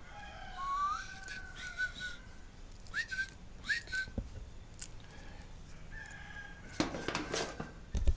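A person whistling short, wandering notes, some sliding upward, with a few sharp clicks and rattles about seven seconds in.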